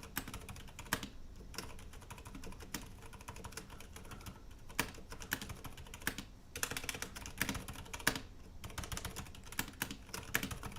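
Typing on a full-size mechanical keyboard with Cherry MX Silent Red switches. The keystrokes are muted clicks in irregular runs and clusters.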